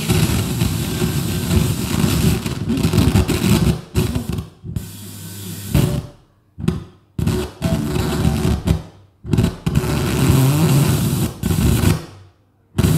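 FM radio broadcast audio from a Pioneer TX-9800 tuner being tuned across the band: snatches of different stations, cut by several short silences as the dial passes between stations.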